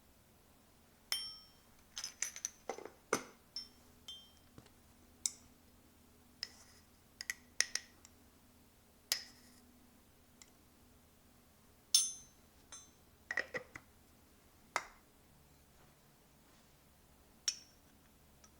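Glass dishes clinking as they are handled and set down: about twenty sharp, irregular clinks, each with a short high ring.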